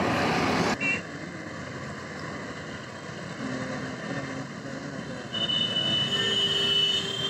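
Road traffic noise with a motor vehicle passing. A loud rush of noise cuts off abruptly under a second in, and a steady high tone sounds from about five seconds in.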